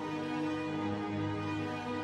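Soft, slow background music: sustained chords with notes changing slowly.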